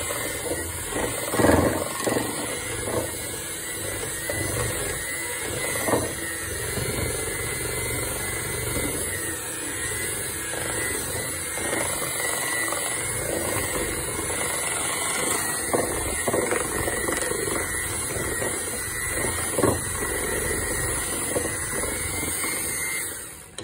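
Electric hand mixer running steadily, its metal beaters churning thick brownie batter, with a few brief knocks along the way. It cuts off just before the end.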